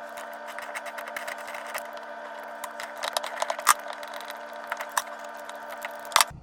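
Scattered metallic clicks and clinks of tools on plumbing fittings while a mixing valve is taken out, with a sharp knock about three and a half seconds in and another near the end, over a steady mechanical hum.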